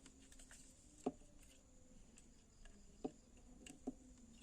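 Near silence with a few faint, short clicks from multimeter test probes being set against an LED bulb's board during a continuity check.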